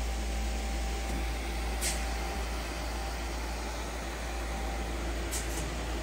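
Yang CK-3B CNC lathe with its spindle running at its maximum 3000 rpm, a steady machine hum and hiss. A brief hiss comes about two seconds in and another near the end.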